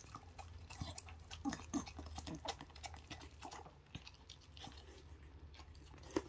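A dachshund chewing a soft homemade fish cake treat fed from the hand, with a quick irregular run of wet chewing and smacking clicks.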